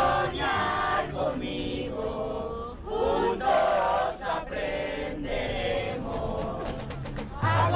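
A group of young people chanting and singing together in unison, many voices at once, with a low beat coming back near the end.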